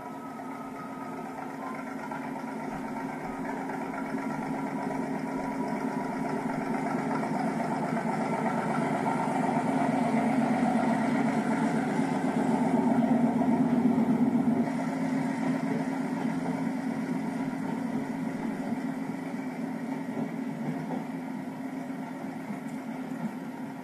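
Motor Rail diesel locomotive on a 2 ft gauge line running with its engine hum, growing louder as it approaches and passes below, loudest about halfway through, then fading as its carriages go by.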